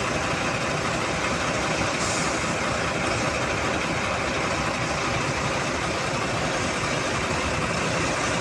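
Heavy diesel engine idling: a continuous, even drone that stays the same throughout.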